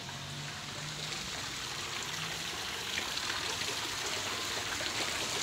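Steady splashing of water from a pool fountain jet falling into a swimming pool, growing a little louder toward the end.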